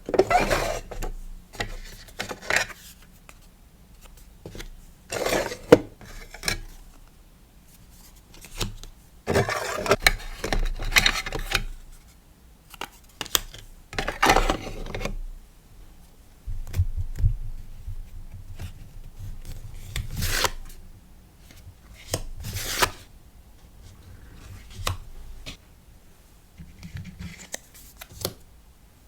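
Hands packing a sticker order: irregular rustling and crinkling of paper and plastic packaging with light taps and clicks.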